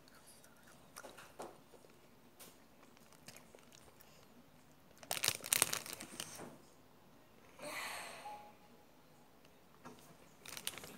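Close-up biting and chewing of a macaron's crisp shell: small crunches, a louder dense cluster of crunches about five to six and a half seconds in, a brief hiss around eight seconds, and a few more crunches near the end.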